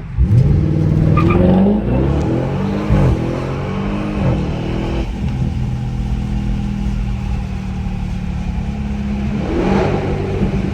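Straight-piped Audi S8 twin-turbo V8 launching hard from a stop. The engine note climbs quickly, falls back at each upshift about two, three and four seconds in, then settles to a steady drone under load. No exhaust pops.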